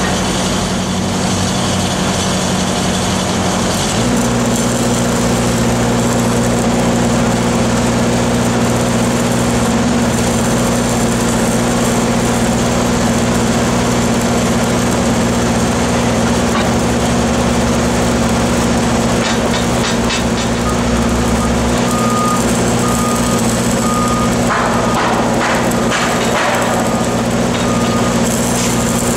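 Heavy diesel equipment engines running steadily, one stepping up in speed about four seconds in. From about twenty seconds in, a vehicle's reversing alarm beeps over and over.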